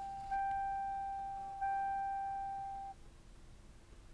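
Car's electronic warning chime dinging with the key turned on: one bell-like tone struck about every second and a quarter, each ding fading, until it stops abruptly about three seconds in.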